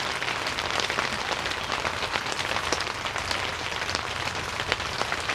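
Steady rain pattering on tent fabric, a dense mass of small drop ticks.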